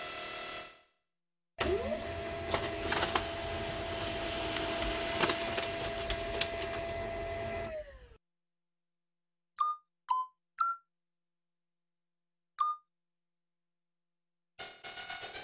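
Synthesized motor sound of an animated plotter arm moving: a whirring run with rattling clicks and a steady tone that glides up as it starts about two seconds in and glides down as it stops about eight seconds in. It is followed by four short blips, each dropping in pitch, and a pulsing musical tone starts near the end.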